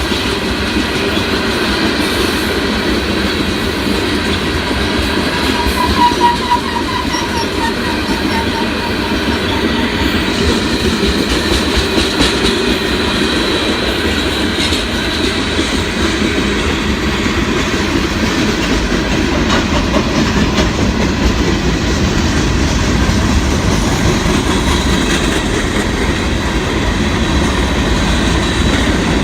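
Freight train cars of a Union Pacific rock train rolling steadily past, a continuous loud rumble of steel wheels on rail with clickety-clack over the rail joints. A brief wheel squeal comes about six seconds in.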